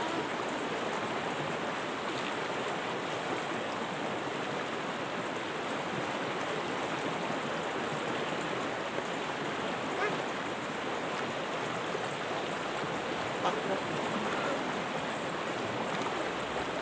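River water rushing steadily over rocks, with a few faint clicks.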